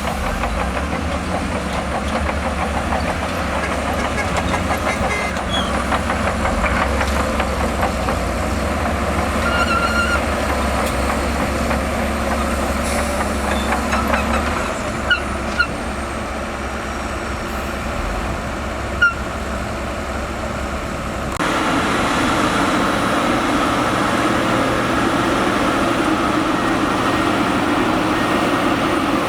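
Bulldozer diesel engine running steadily under load, with a few short squeaks around the middle. Shortly after the middle the sound changes abruptly to a different engine drone.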